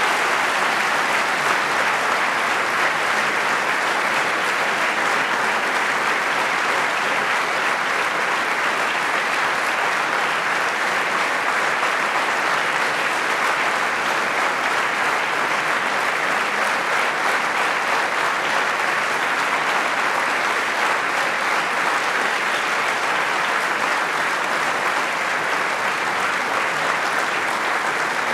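Large audience applauding, many hands clapping together in a steady, even wash of sound.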